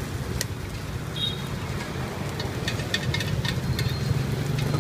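Cakes frying in a cast-iron mould over a wood fire: a steady hiss with a low rumble beneath. A handful of light metal clicks sound as a utensil touches the pan, mostly in the second half.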